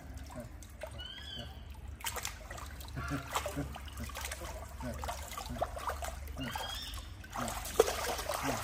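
Liquid trickling and splashing, with many light clicks and knocks and one sharp knock near the end. Two short high squeaks, one about a second in and one near seven seconds.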